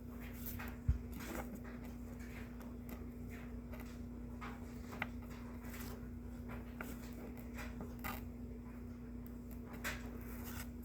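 Trading cards being handled and slid one behind another, giving faint scattered ticks and soft slides, over a steady low hum. One low thump about a second in.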